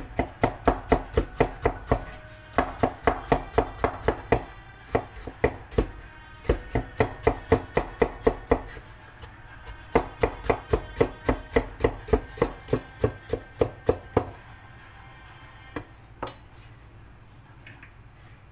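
A knife chopping food on a cutting board in quick, even strokes, about five a second. The strokes come in several runs with short pauses between them, followed by two single chops near the end.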